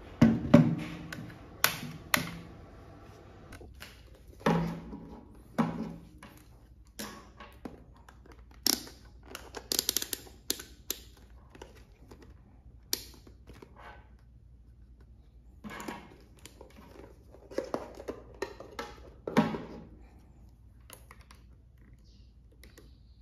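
A 12 V lead-acid car battery set down on a wooden tabletop with a thunk about half a second in, then scattered knocks and clicks from handling a digital multimeter and its test leads.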